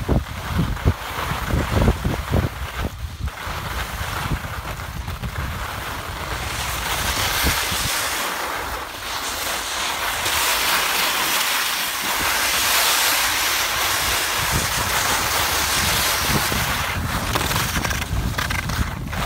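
Wind rushing over the microphone of a skier moving downhill, with gusty low buffeting in the first few seconds, and the steady hiss of skis sliding and scraping over hard groomed snow, louder from about six seconds in.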